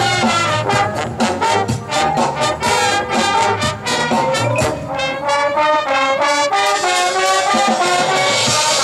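High school marching band's brass section playing: quick, short accented notes in a steady rhythm, then long held chords from about two-thirds of the way through. A bright hiss swells under the chords near the end.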